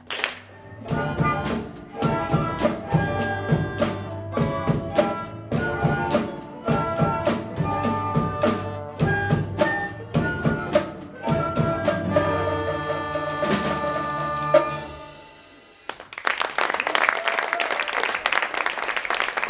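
Children's orchestra playing an upbeat piece over a steady drum-kit beat; the music fades out about three-quarters of the way through and audience applause follows.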